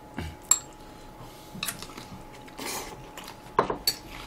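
Cutlery clinking against porcelain bowls and plates during a meal: a few scattered clinks, then a quick cluster of them near the end.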